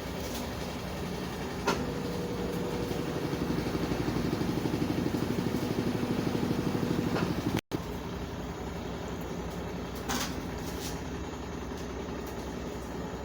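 Consul CWS 12 top-loading washing machine running through a wash with a load of sheets and towels, a steady mechanical hum with a fast pulsing beat. Two light clicks are heard, and the sound drops out for an instant just past halfway.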